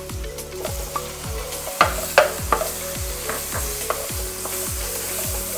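Minced chicken sizzling in melted butter in a nonstick wok while a spatula stirs and breaks it up, with a few sharper clicks about two seconds in.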